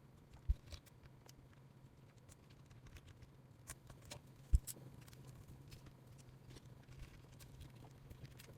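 Faint clicks and taps of small metal parts and a hand driver being handled while lower suspension links and shocks are fitted to a mini RC crawler, with two sharper knocks about half a second in and near the middle. A low steady hum runs underneath.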